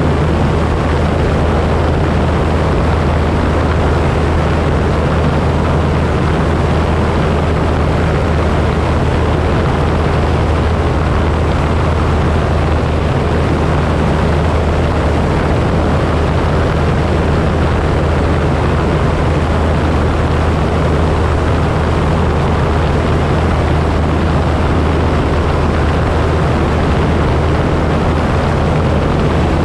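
Light single-engine propeller plane in cruise: the engine and propeller drone steadily with a deep, unchanging hum, under a constant rush of airflow noise.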